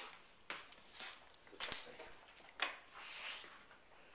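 A small terrier scuffling on a rug and tile floor as it rolls over, with a few sharp clicks among the rustling.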